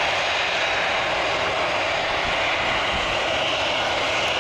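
Jet airliner engine noise: a steady, even rushing sound.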